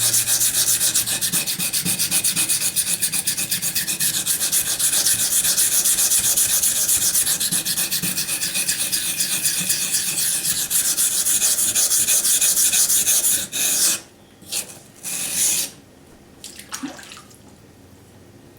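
AUS-8 steel knife blade being ground on a waterstone in rapid back-and-forth strokes: a steady, gritty scraping that stops about thirteen seconds in, followed by two short strokes. The blade is being ground down to remove chips from the edge.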